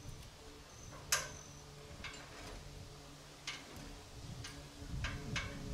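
Wooden shed truss members knocking and clicking as the hoisted bird's-beak piece is shifted into place at the roof peak: about seven short sharp knocks at uneven spacing, the loudest about a second in.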